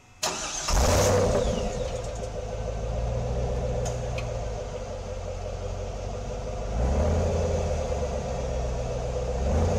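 AC Cobra MK IV's V8 engine starting up. It catches with a loud rev about a second in and settles to a steady idle. The revs rise again about seven seconds in.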